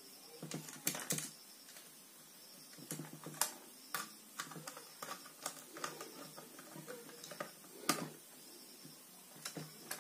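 Irregular small clicks and taps of a screwdriver and wire ends being worked into the terminal screws of plastic modular switches on a wiring board. The sharpest clicks come about a second in, around the middle and near the end.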